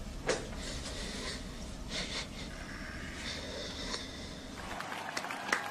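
A man sniffing and breathing unevenly as he cries, with a few sharp sniffs over a low room hum.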